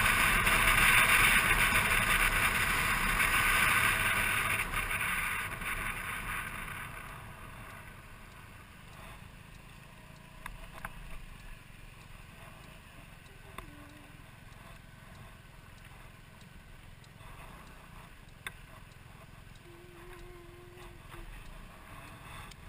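Riding noise on a moving scooter: wind rushing over the camera together with the engine running. The loud rush fades over a few seconds, leaving a quieter steady hum with a few faint clicks.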